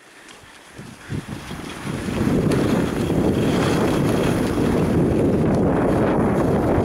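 Wind rushing over the camera's microphone as the skier is towed along by the dog. It builds up over the first two seconds, then holds as a steady, low rumble.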